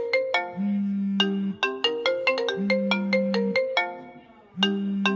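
iPhone built-in ringtone playing: a short tune of bright struck notes over a held low note, the phrase repeating about every two seconds.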